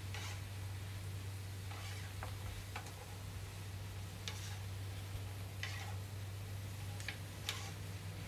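Wooden tongs clicking and scraping on a griddle plate as sliced beef brisket and bean sprouts are tossed, in short irregular strokes about eight times, over a steady low hum.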